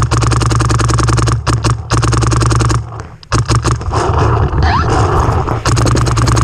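Electronic paintball markers firing fast strings of shots, many a second. The firing breaks off for a moment about three seconds in, then resumes.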